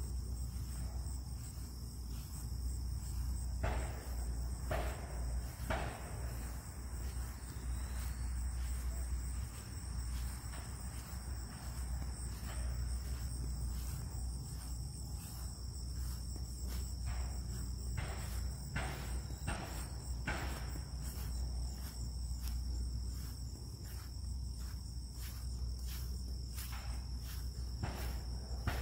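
Steady high-pitched chorus of crickets, with scattered knocks and clatter from someone working on something, coming more often in the second half.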